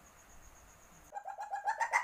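Asian palm civet in heat giving its mating call: a fast run of short pitched notes, about eight a second, that starts about a second in and grows louder.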